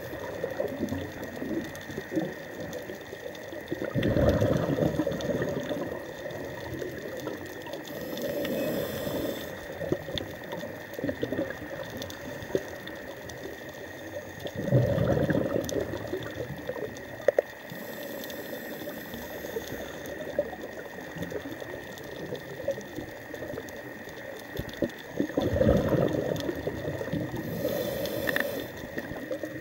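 Scuba diver's regulator breathing underwater: three slow breaths, each a surge of exhaled bubbles lasting about two seconds, followed a few seconds later by a short hiss of inhaling. Between them runs a constant crackling and ticking of the reef.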